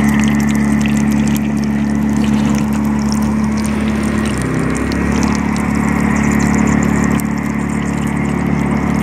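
A small engine running steadily with a droning hum, its pitch wavering briefly about four and a half seconds in before settling again.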